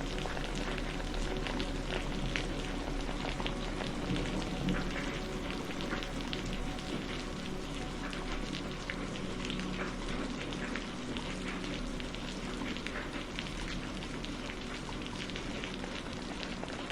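Steady rain falling, a continuous hiss dotted with many individual drop impacts, with faint held low tones underneath.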